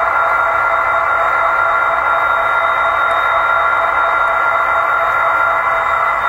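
SoundTraxx Tsunami2 sound decoder in an Athearn Genesis SD60E model locomotive playing a recorded EMD diesel engine running steadily, with a steady high whine over the engine noise.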